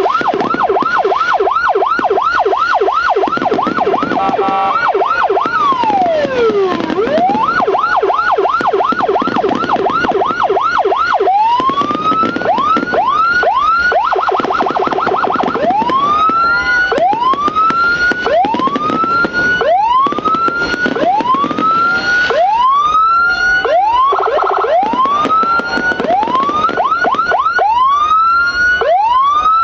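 Electronic police-escort (patwal) siren module, a 9–12 tone unit driven through a TOA horn speaker, cycling through its tones: a fast yelp of several sweeps a second, one slow falling wail about six seconds in, then from about eleven seconds a slower run of rising whoops about one a second, broken by short stretches of the fast yelp.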